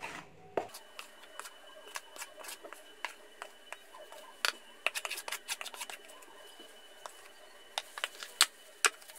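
A spatula scraping and knocking against a plastic mixing bowl as cake batter is scooped out into a metal loaf tin: an irregular run of sharp clicks and scrapes, busier and louder in the second half.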